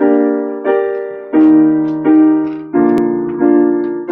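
Piano chords played slowly as a song's opening, about six in all. A new chord is struck roughly every two-thirds of a second and each fades before the next.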